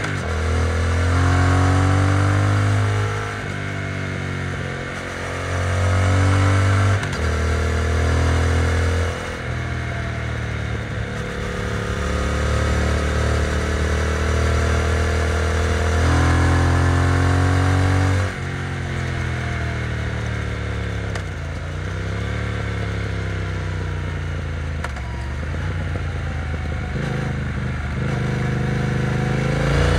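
Triumph Speed Twin parallel-twin engine running through its exhaust. The pitch rises and falls repeatedly, with several sudden changes in level, as the throttle is opened and closed.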